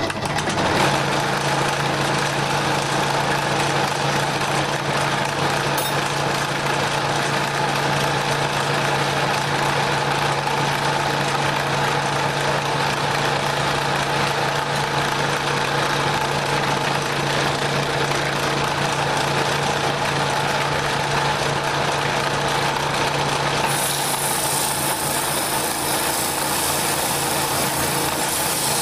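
Wood lathe running steadily with a workpiece spinning in a home-made steady rest: an even motor hum that starts at the opening and holds one pitch. About four-fifths of the way through, a hiss joins in.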